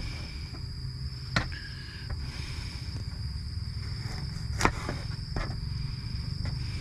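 A steady high insect drone, over a low steady rumble, with two sharp clicks about one and a half and four and a half seconds in.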